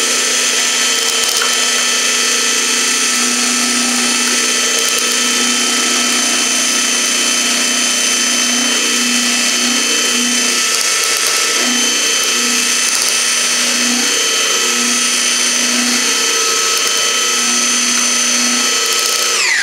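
Hand blender with a whisk attachment running steadily at medium speed, beating egg whites with a pinch of salt to a thick foam. Its motor winds down and stops at the very end.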